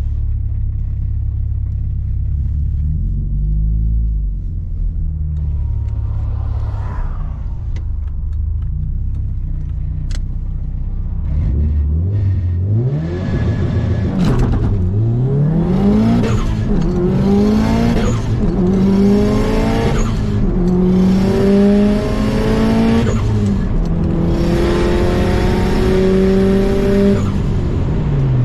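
Subaru WRX STI's turbocharged EJ25 flat-four heard from inside the cabin, cruising at first with a low steady rumble, then accelerating hard through several gears: the engine note climbs in pitch and drops back at each upshift, each pull longer than the last, before easing off near the end.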